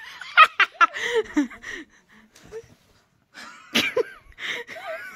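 Women laughing and squealing in high, bursting voices in the first second. After a short lull there is a sudden loud cry just before four seconds in, then more laughter.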